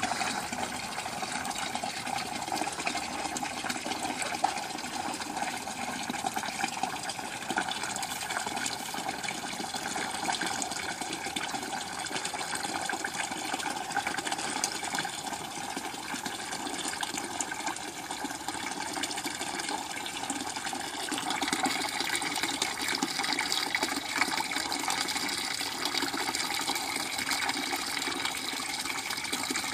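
Thin stream of water pouring from a timer valve at the bottom of a hanging five-gallon bucket into a plastic bucket below, a steady splashing trickle as the bucket drains. It grows a little louder about two-thirds of the way through.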